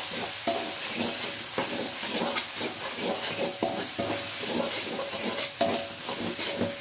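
A metal spatula scrapes and stirs spice paste frying in oil in an aluminium wok: a steady sizzle under repeated scraping strokes with a light metallic ring. A sharper clank of metal on the wok comes at the very end.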